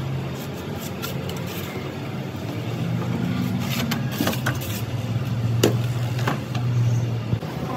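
A steady low machine drone, like an engine running, rises and falls a little in level. Over it come a few sharp scrapes and knocks from a hand scraper working over a plaster ceiling-tile mould, mostly around the middle.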